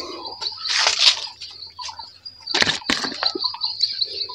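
Birds chirping over a steady, high, pulsing trill, with a few brief crunching rustles, the loudest about a second in and just before three seconds in.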